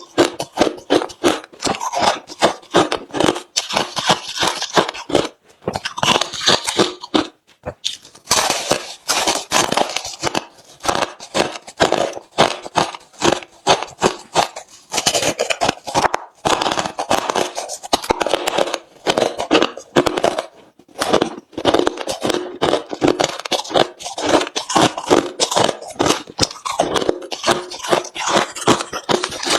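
Close-up crunching of hard refrozen crushed ice being bitten and chewed, a dense run of sharp cracks and crunches with a few short pauses between mouthfuls.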